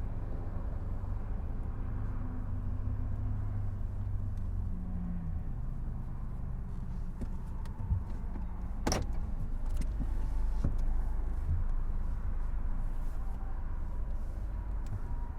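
Car engine running with a steady low hum whose pitch shifts about four to five seconds in, and a single sharp click about nine seconds in.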